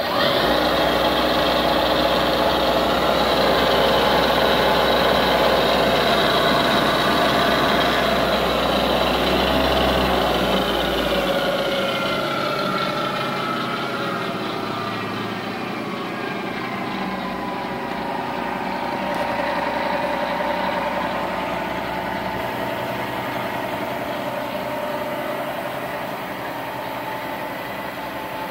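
Millport vertical milling machine's spindle motor and variable-speed head, switched on and running with a steady whine. About twelve seconds in, the whine slides down in pitch over several seconds, then runs on steadily at the lower speed.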